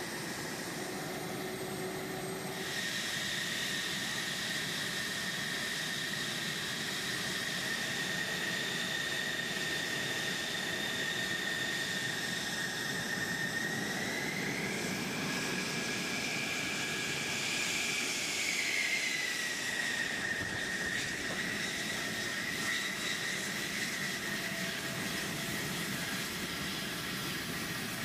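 F-16 fighter jet engine running on the ground: a steady high turbine whine over a broad jet roar, coming in about two seconds in. Partway through, the whine rises a little in pitch for a few seconds, then settles back.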